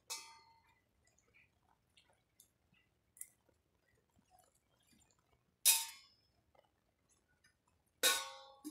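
Three sharp metallic clanks, each ringing briefly: one at the start, one a little past halfway, and one near the end, with faint light ticks in between.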